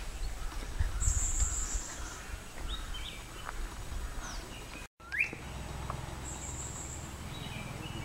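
Wild birds calling in a forest: scattered short chirps and whistles, with a sharp rising whistle about five seconds in, just after a brief dropout. A thin high hiss sounds twice, about a second each time, and a low rumble of wind or handling comes about a second in.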